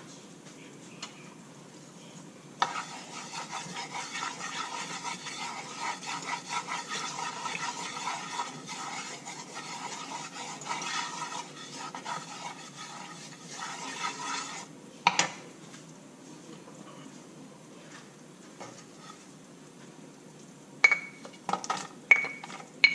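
A wooden spatula stirring and scraping oil around a nonstick wok for about twelve seconds, ending in a knock. Near the end come a few sharp clacks as sliced onions are pushed off a plate into the pan with the spatula.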